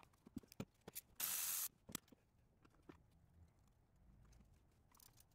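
Faint small clicks and knocks of spark plug wires and engine-bay parts being handled, with a sharp half-second hiss about a second in.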